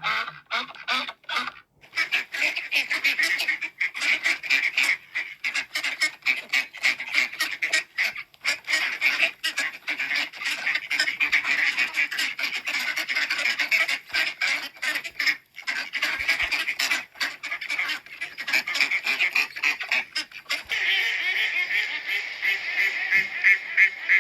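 A flock of domestic ducks and geese calling together: a dense, continuous run of quacks and honks, busiest around twenty seconds in.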